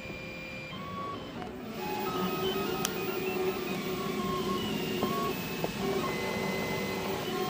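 Markforged 3D printer at work: its stepper motors whine in short steady tones that jump from pitch to pitch as the print head moves, over a steady hiss. It gets louder about two seconds in, with a single click about three seconds in.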